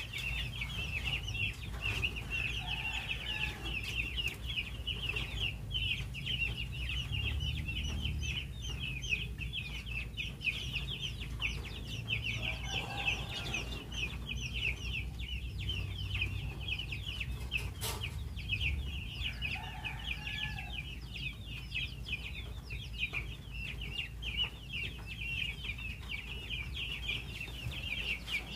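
A brood of young chicks peeping without pause, a dense chorus of short, high, falling cheeps, over a low steady hum.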